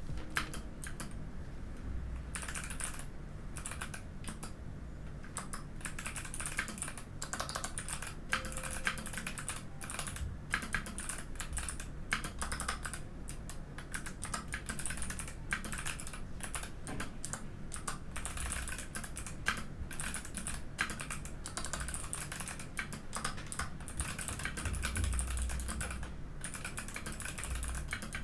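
Continuous typing on a Mikit M65 mechanical keyboard with Kailh Box White clicky switches: a dense stream of crisp keystroke clicks, easing briefly a few seconds in and again near the end.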